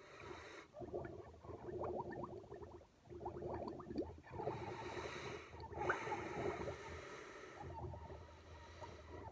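Milk gurgling and bubbling as air is blown into it through a drinking straw, with a couple of breaths drawn through the nose in the middle.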